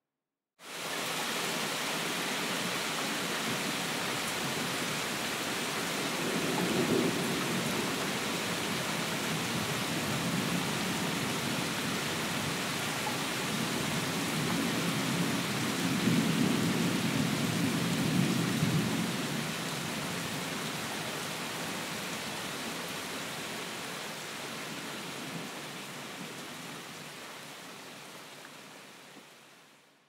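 Steady heavy rain hiss that cuts in abruptly, with two low rolls of thunder: a short one early and a longer one around the middle. The rain then fades out slowly toward the end.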